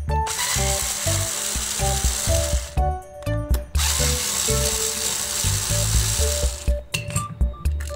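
DEDONG cordless electric screwdriver running in two bursts of about two and a half and three seconds, turning a screw in a plastic toy's housing.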